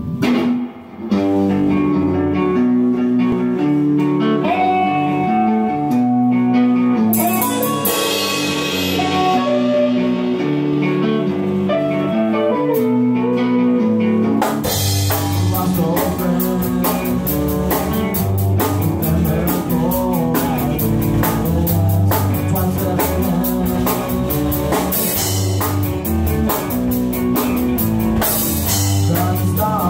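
A rock band playing in a small room. Electric guitars open the song alone, with a cymbal swell about seven seconds in, and about fourteen seconds in the drum kit and bass guitar come in with the full band.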